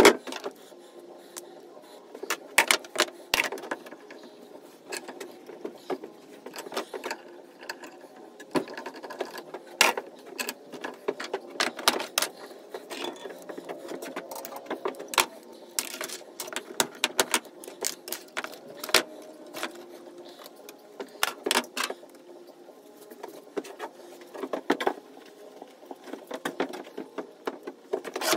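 Irregular clinks and knocks of small brass fittings and hand tools being handled, picked up and set down on a wooden workbench.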